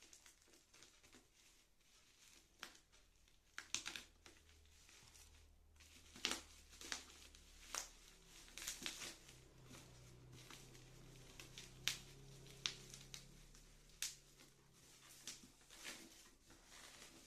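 Packaging being handled and opened: crinkling and rustling in scattered short crackles, with a few louder snaps.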